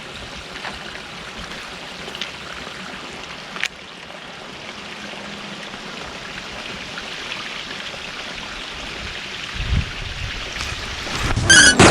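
Steady hiss of outdoor ambience, like rain or running water, with a single click a few seconds in. Low rumbling starts near the end and builds into a loud burst just before it ends.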